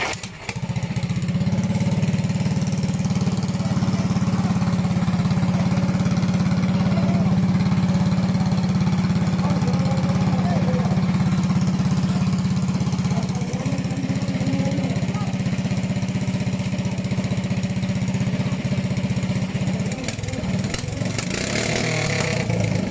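A pump boat's small engine running steadily close by, with a brief dip about twenty seconds in.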